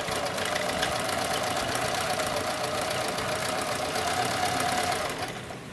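Domestic sewing machine running steadily while sewing a zigzag stitch, its motor whine under a rapid run of needle strokes; it stops about five seconds in.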